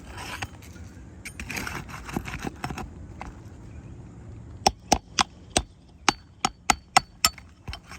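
Scraping against roof shingles, then about ten sharp hammer taps in quick succession, each with a short metallic ring, as nails are worked loose to remove a wind-torn asphalt shingle.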